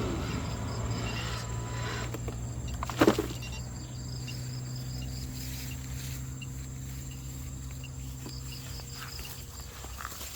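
Insects chirping in short repeated calls over a steady low hum, with one sharp knock about three seconds in.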